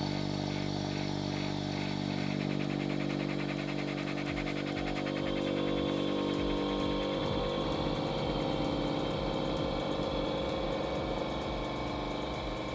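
Electric vacuum pump running: a steady hum that turns rougher and rattling about halfway through as it pulls the chamber down.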